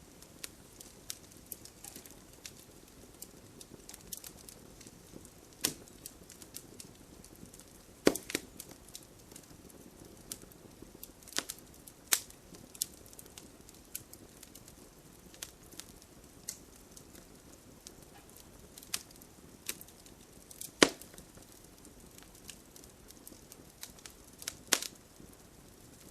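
Wood campfire crackling: irregular sharp pops and snaps over a low steady hiss, the loudest pops about eight seconds in and again about twenty-one seconds in.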